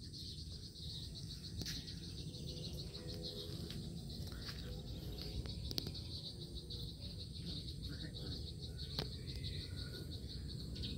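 Insects chirring in a steady, high, fast-pulsing chorus, with a few faint clicks.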